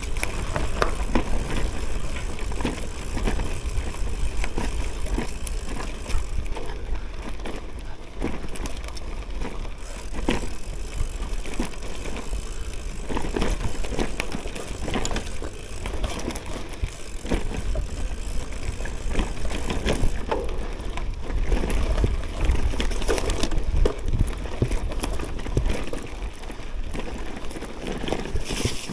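Cube Cross Race gravel bike rolling over a forest dirt trail: tyres on dirt and the bike rattling over bumps, with many small knocks, under a steady low rumble.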